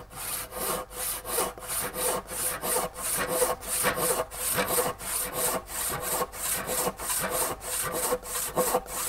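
Handsaw ripping along a rough timber plank by hand, in steady, even strokes of about two to three a second.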